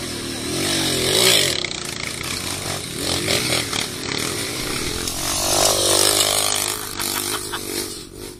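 Off-road motorcycle engine revving hard in surges, its pitch climbing and dropping, loudest about a second in and again around six seconds.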